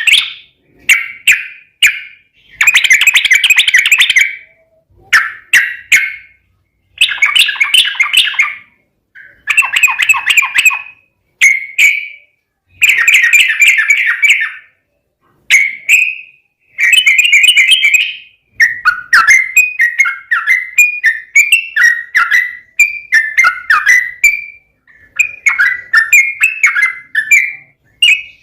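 Yellow-vented bulbul (trucukan) singing loudly in its aggressive "tarung" style: bubbly, chattering phrases of a second or two with short pauses, running together into a near-continuous stream of rapid notes from about two-thirds of the way through.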